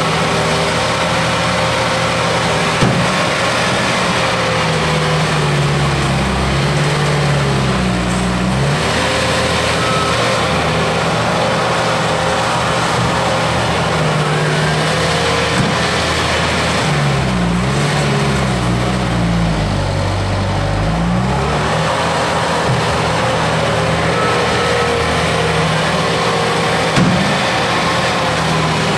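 Bobcat S220 skid-steer loader's diesel engine running hard as it pushes and scoops dirt, its pitch rising and falling again and again, with a couple of brief knocks.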